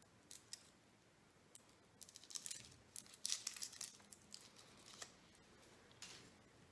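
Faint crinkling and rustling of a Lindt chocolate ball's wrapper being twisted and peeled open by hand, in irregular bursts that are thickest between about two and four seconds in.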